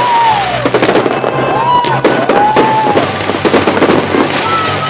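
Fireworks going off in rapid succession: dense crackling and popping bangs, with several whistling shells, each a whistle that rises and then falls.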